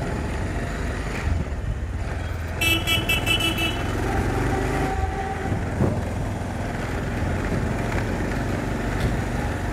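Bajaj Pulsar 220 motorcycle's single-cylinder engine running at low speed with wind and road noise. About three seconds in, a horn gives a quick string of short toots lasting about a second.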